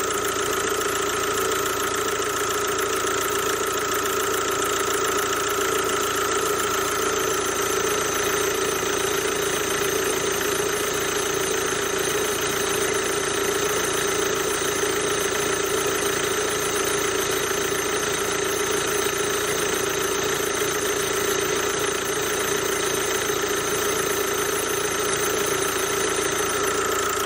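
Kia Ceed CRDi diesel engine idling with its ribbed accessory belt running, a steady loud rushing noise and high squealing from the belt's idler pulley, whose bearing is worn.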